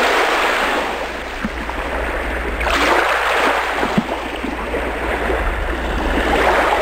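Water rushing and splashing without a break, swelling in surges about three seconds in and again near the end.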